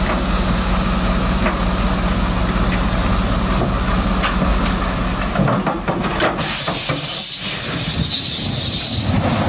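An engine running steadily with a low hum. About five seconds in, it gives way to a loud hiss that swells near the end.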